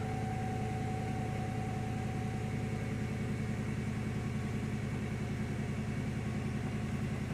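Mercedes-Benz CL500's V8 engine idling steadily.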